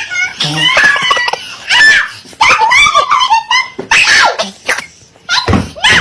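Loud, high-pitched laughter with shrieks, a person cracking up.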